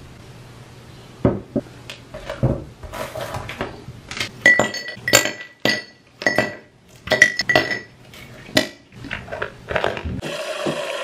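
Frozen coffee ice cubes pushed out of a silicone ice-cube tray, dropping into a tall drinking glass: a few knocks, then a quick run of sharp clinks, each with a short glassy ring.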